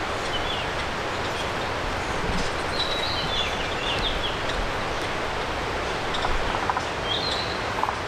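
A steady rush of flowing stream water, with wild songbirds giving short high chirps and whistles a few times over it, the busiest about three seconds in.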